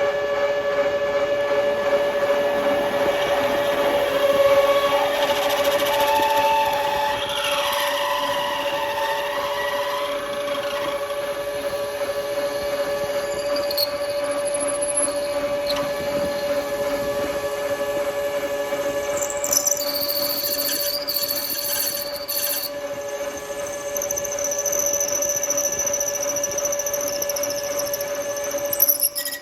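Metal lathe running with a steady whine while a 1/2 inch drill bit bores into aluminium bar stock. Higher squealing tones from the cutting come and go, and the sound drops away sharply at the very end.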